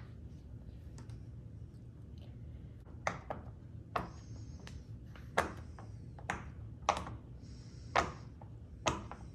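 Pop-it push-pop bubble fidget toy being pressed, its bubbles popping one after another. About ten sharp pops at uneven intervals, most of them from about three seconds in.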